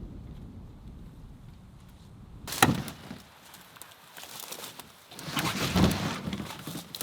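A low rumble of wind on the microphone, then a single loud knock about two and a half seconds in. Near the end comes a longer stretch of scraping and clattering knocks, like wooden gear being handled.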